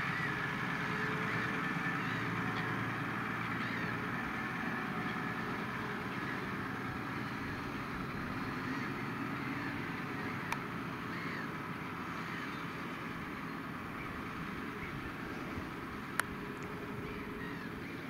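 New Holland T7.245 tractor's six-cylinder diesel engine running steadily under load while pulling a Lemken reversible plough through the soil, slowly fading as the tractor moves away. Two sharp clicks, about ten and sixteen seconds in.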